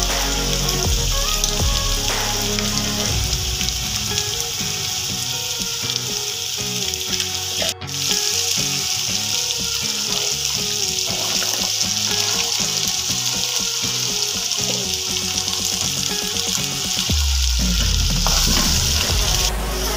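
Spice masala sizzling and frying in hot oil in a wok as it is stirred with a wooden spoon; boiled chickpeas are tipped into the pan about halfway through and go on frying. The sizzle cuts out for an instant about eight seconds in.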